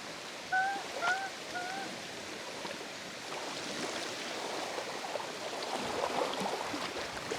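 A bird calls three short, slightly rising-and-falling notes in quick succession about half a second apart, over a steady outdoor background hiss.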